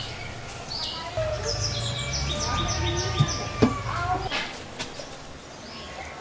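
Birds chirping, with a quick run of about half a dozen short, high, falling notes in the first half. A little after three seconds come two sharp knocks of a cooking pot being set on a clay wood-fire stove.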